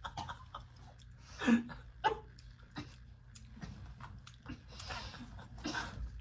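People eating from bowls: spoons tapping and scraping the bowls, with chewing. A few short wordless vocal sounds, such as a laugh or a hum, come about one and a half seconds in, at two seconds and near the end.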